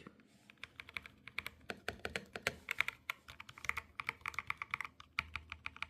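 Typing on a Higround Apex mechanical keyboard with TTC Venus switches: a quick, uneven run of keystroke clicks as a sound test of the switches.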